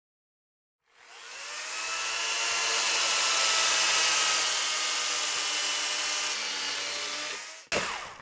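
Electric chainsaw starting about a second in, its motor spinning up and then running steadily as the chain cuts through a timber beam, making a square end cut on the guide rail. It stops shortly before the end, with a brief knock right after.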